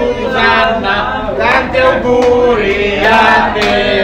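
Music with choir-style group singing, voices holding and gliding between notes.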